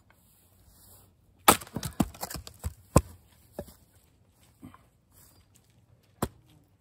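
An axe strikes and splits a round of fresh American persimmon about a second and a half in; the pieces then clatter onto the woodpile, with a second loud knock about three seconds in. A single sharp wooden knock follows near the end.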